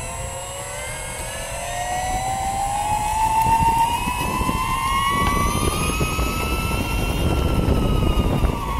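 N5065 270kv brushless motor whining through its toothed belt drive as the electric scooter accelerates. The pitch rises steadily for about seven seconds, then begins to drop near the end as it eases off. Under the whine is a low rumble of the wheels rolling on pavement, which grows louder as speed builds.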